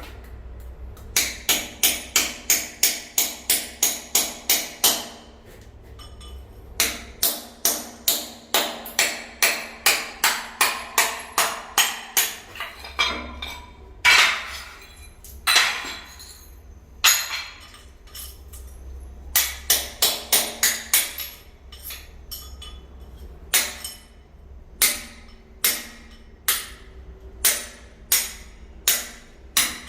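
Hammer striking hard in quick runs of about four blows a second, broken by short pauses.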